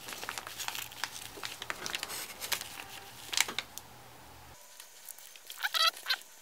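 Fingers pressing and working soft epoxy putty into a plastic GoPro mount: many small sticky clicks and crackles, then near the end a short burst of rapid squelchy squeaks.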